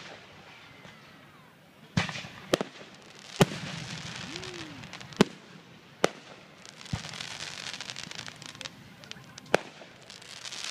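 Aerial fireworks shells bursting in a display: about seven sharp bangs at irregular intervals of a second or so, with spells of dense crackling between them.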